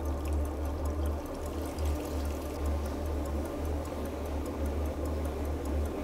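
Water trickling and splashing steadily into a shallow pool over stones, with a low rumble and a faint, fast, even ticking underneath.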